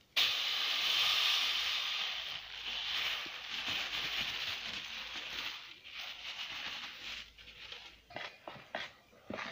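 Granulated sugar poured from a bag into a metal pot of batter: a steady sandy hiss that starts suddenly and tapers off over several seconds, followed by a few scattered clicks and rustles near the end.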